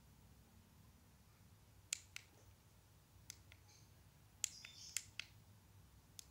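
About nine sharp, irregular clicks from a computer's controls as presentation slides are paged on a laptop, over a faint low hum.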